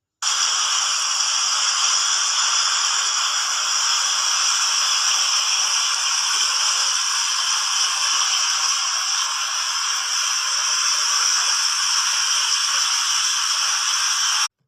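Water fountain jets falling and splashing: a steady rushing hiss with little low rumble, starting abruptly and cutting off suddenly near the end.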